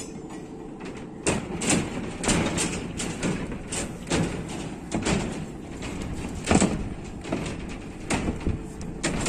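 Irregular knocks and thuds of work on a building slab's steel formwork and rebar, roughly one or two a second, over steady background noise.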